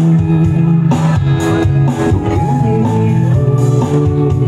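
Live band playing a song, led by electric guitar and bass guitar.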